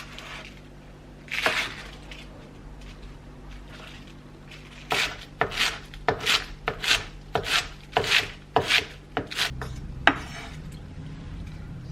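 Kitchen food preparation: a single scrape, then about ten quick scraping or cutting strokes at about two a second, ending with a sharp click, over a low steady hum.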